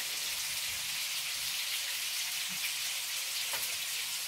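Meatballs and hot peppers frying in a pan: a steady crackling sizzle, with a small tap about three and a half seconds in.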